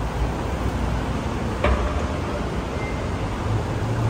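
Steady traffic noise from taxis at a covered pickup lane, a low rumble under an even hiss. One sharp knock comes about a second and a half in.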